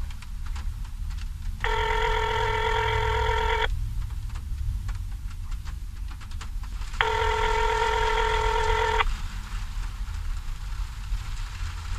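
Ringback tone of an outgoing phone call heard through a smartphone's speaker: two rings, each about two seconds long, about five seconds apart.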